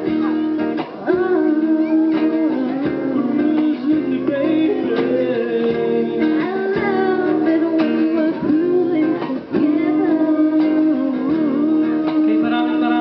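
Acoustic band music: a strummed acoustic guitar accompanying singing.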